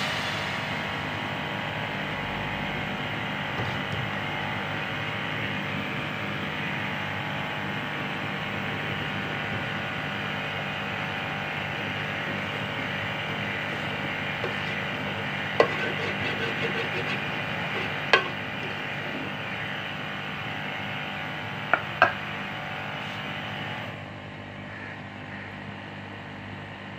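Refrigerator running with a steady mechanical hum and rattle, unusually noisy for a new fridge; it drops away abruptly a few seconds before the end, when the fridge is switched off. A spoon clinks against the steel pot four times past the middle.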